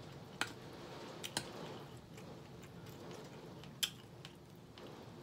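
Metal fork clicking against a glass bowl while meat is pulled apart with it: four sharp, separate clicks, two of them close together.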